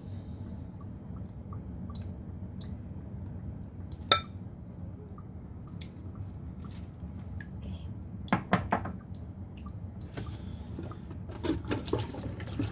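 Bowls knocking and clattering against a stainless steel kitchen sink, with scattered water drips, over a steady low hum. One sharp clack comes about four seconds in, a few quick knocks come about eight seconds in, and more knocks come near the end.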